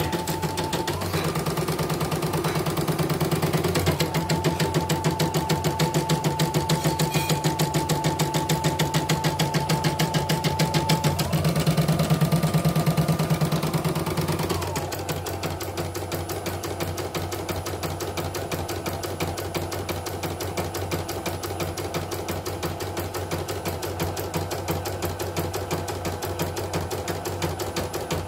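CNY portable embroidery machine stitching, a rapid even rhythm of needle strokes over a motor whine that steps up in pitch twice and settles lower and a little quieter about halfway through. It is running smoothly after its motor and power supply were replaced to cure unstable speed.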